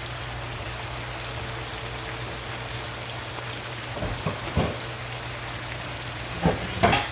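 Potatoes frying in an oiled skillet, a steady crackling sizzle, with a few knocks and clatters of cookware about four seconds in and near the end as pot lids are handled.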